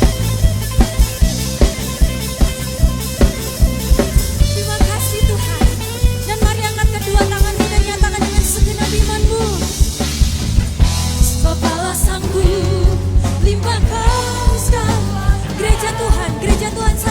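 Live church worship band playing an upbeat song: drum kit keeping a steady, driving beat under bass and a moving melody line, with singing.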